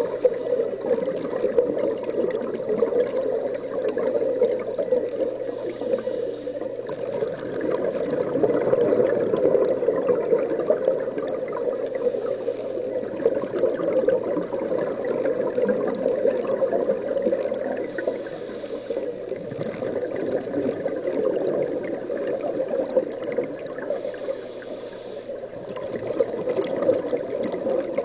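Continuous underwater bubbling and gurgling from scuba divers' regulator exhaust bubbles, heard underwater, swelling and easing a little over time.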